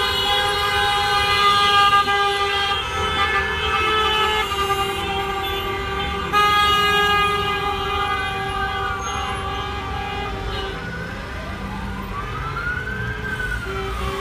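Many car horns sounding together from a slow-moving convoy of cars, several held as steady tones. In the second half a siren wails up and down twice over the horns.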